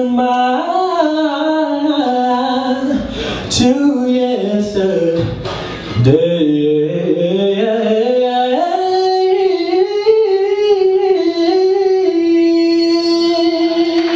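A man singing a cappella through a microphone, with vocal runs that swoop up and down and a low dip about six seconds in. He settles on one long held note for the last couple of seconds.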